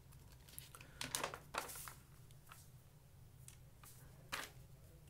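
Faint handling noise as a small circuit board is moved about by hand and laid on a table: several light rustles and clicks over a low steady hum.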